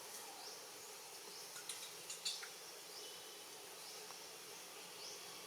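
Faint outdoor ambience: short rising chirps repeating about once a second over a low steady hiss, with a few sharp clicks about two seconds in.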